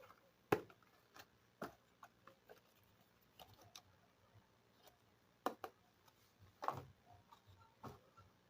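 Small plastic toy kitchen pieces being handled and set down: scattered light clicks and taps, the sharpest about half a second in and again near five and a half and near seven seconds.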